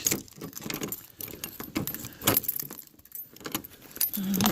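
A bunch of keys jangling and rattling in the hand, with irregular clicks of handling and a lock being worked open.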